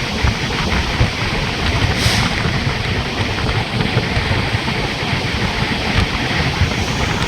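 Wind buffeting the microphone over a low, steady rumble, with a brief hiss about two seconds in.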